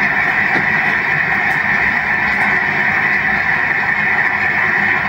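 Steady applause from a crowd in a large chamber, heard through a television's speaker.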